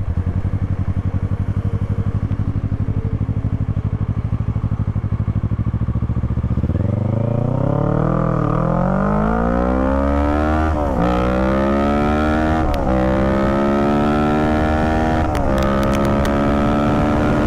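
Kawasaki Z650's parallel-twin engine idling, then a hard launch about seven seconds in. The engine note climbs steeply through the gears and drops sharply at each of four quick upshifts as the bike accelerates flat out.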